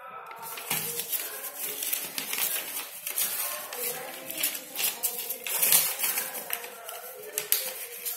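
Bubble wrap and plastic packaging crinkling and crackling in short bursts as it is handled, with a voice talking underneath.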